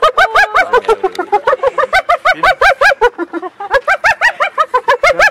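Spotted hyena giggling: a fast, continuous string of high rising-and-falling whooping notes, about five or six a second, with a short break about three seconds in.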